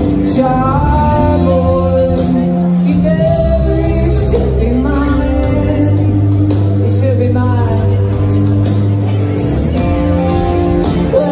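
Live rock band playing loud, with electric guitar, drums and sustained low bass notes, and a woman singing phrases over them.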